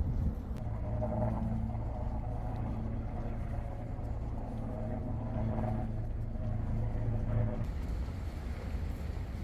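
An engine running with a steady low drone over a low outdoor rumble; the drone stops about seven and a half seconds in.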